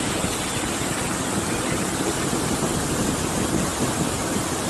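Floodwater pouring over a low concrete weir, a steady, even rush of white water.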